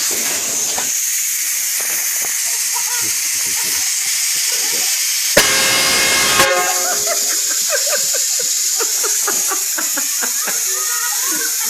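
A train horn gives one blast of about a second, about five and a half seconds in, over a steady hiss.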